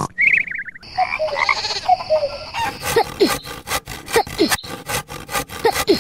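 A hand saw sawing in rapid, regular strokes from about two and a half seconds in, with short falling squeaky calls among the strokes. It is preceded by a short croak and a high steady tone.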